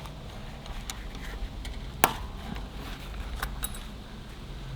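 Scattered light clicks and taps of metal parts being handled while a lawn mower's front wheel is taken apart, with one sharp knock about two seconds in, over a faint steady low hum.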